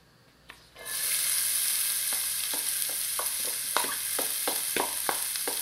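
Finely diced onion tipped into hot oil in a stainless steel pot: a loud sizzle starts suddenly about a second in and keeps on, with scattered sharp crackles through it.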